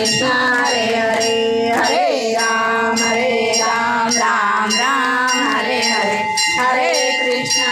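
A woman singing a Hindu devotional song into a microphone, in long held and gliding notes, over a steady rhythmic metallic jingle of about two strikes a second.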